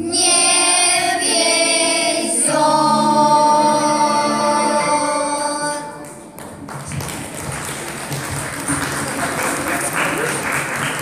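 Children's choir singing the last two long held notes of a song, ending about six seconds in, followed by audience applause.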